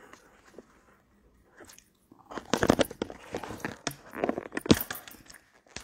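Handling noise from a phone being picked up and moved: a couple of seconds of faint noise, then a loud stretch of close rubbing, crackling and clicks against the microphone.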